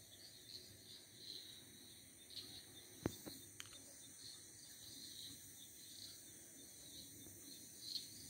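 Faint night insects chirping, a steady pulsing of high chirps a few times a second. A single sharp click about three seconds in, followed by a fainter one.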